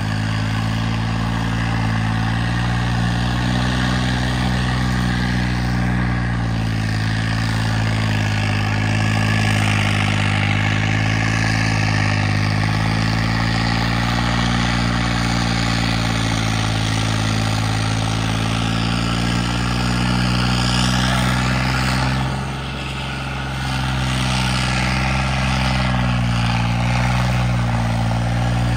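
Diesel tractor engine running steadily under heavy load while pulling a loaded trolley, a low, even drone that dips briefly about three quarters of the way through and then picks up again.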